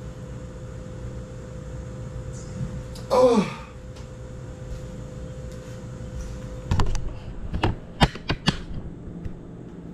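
A man's short groan on waking, falling steeply in pitch, about three seconds in. Later comes a quick run of sharp clicks and knocks as a window curtain is drawn open.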